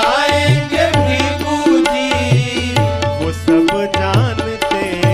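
Bhajan music between sung verses: tabla keeping a steady rhythm with deep bass strokes, under held sustained notes and a sliding melody line.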